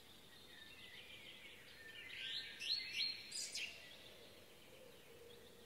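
Wild birds calling: a few quick rising chirps about two to three and a half seconds in, over a faint steady background hiss.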